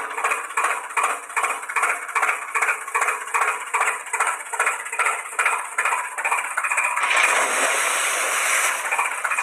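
Tractor engine chugging in a steady rhythm of about three beats a second, thin and without low rumble. About seven seconds in it gives way to a steady hiss.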